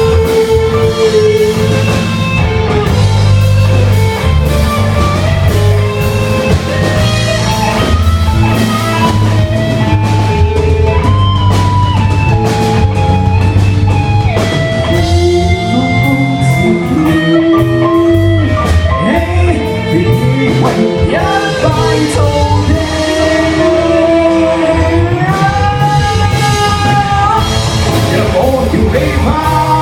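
A band playing a rock song live: a singer holding and bending sung lines over guitar and drum kit.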